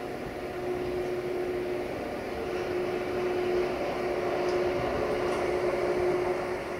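Freight train rolling past, a steady rumbling noise with a held mid-pitched whine that breaks off and returns several times. It grows louder toward the end, then drops away.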